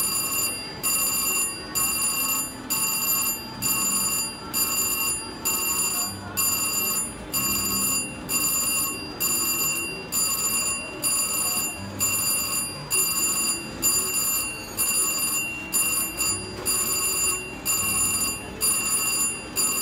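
Slot machine electronic chime ringing over and over, a bright multi-tone ding repeating about every three-quarters of a second without a break.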